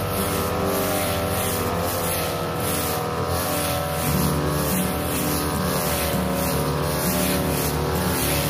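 42cc two-stroke brush cutter running at high revs, its sharp metal blade cutting through thick, overgrown grass; the engine note wavers slightly as the blade meets the grass.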